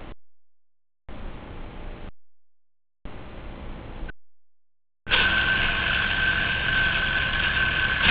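Flywoo FPV quadcopter's motors: faint hiss cutting in and out three times, then about five seconds in the motors come in loudly with a steady whine that holds its pitch.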